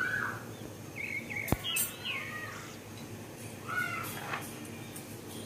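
Birds chirping in short hooked calls several times through the background, with one sharp click about one and a half seconds in.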